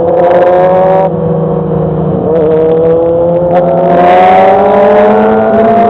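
Motorcycle engine through an aftermarket Megafon exhaust, holding a steady note for about a second, then climbing steadily in pitch as it accelerates.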